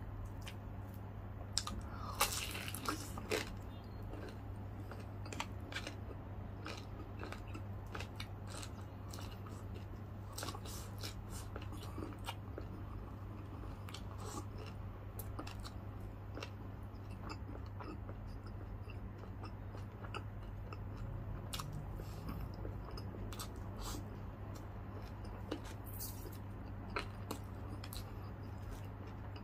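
Close-up eating sounds: crunching bites into crispy lechon kawali (deep-fried pork belly) and chewing with the mouth near the microphone, the loudest crunches coming about two to three seconds in, then scattered crackles as he keeps chewing. A steady low hum runs underneath.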